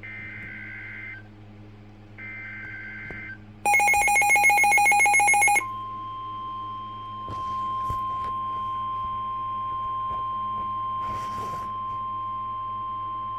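NOAA Weather Radio alert sequence: two short bursts of SAME header data, a warbling two-tone screech, then about two seconds of a loud, rapidly pulsing electronic alarm, then the steady 1050 Hz weather radio warning alarm tone held for about nine seconds, the signal that a new warning message follows.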